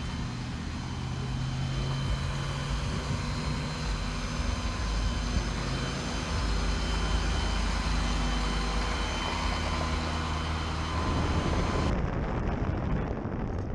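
A vehicle engine idling steadily. About twelve seconds in the sound changes abruptly to wind and road noise from a flatbed tow truck driving along.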